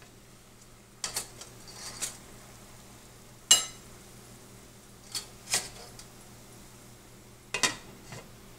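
Clinks and knocks of a stainless steel pot, its lid and a steamer basket being handled with metal tongs, while steamed lobster tails are lifted out. About eight sharp metallic knocks, the loudest about three and a half seconds in with a short ring.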